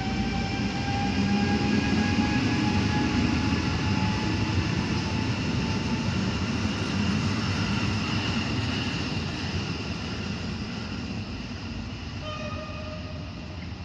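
Koleje Mazowieckie EN57 electric multiple unit pulling out and accelerating away: rumble of the bogies with an electric motor whine that rises slowly in pitch, the whole sound fading as the train recedes. A brief higher tone sounds near the end.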